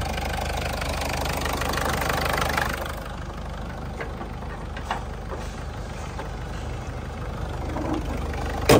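Ford Figo's engine idling steadily, with a single loud sharp thump near the end.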